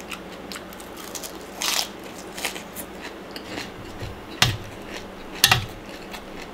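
Close-up eating sounds: crunching and chewing of a crisp vegetable stem, then a metal spoon scraping and clinking against a stainless-steel bowl of salad, with two sharp clinks about a second apart in the second half.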